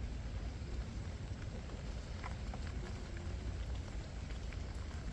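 Light rain pattering, with scattered drops ticking, over a steady low rumble.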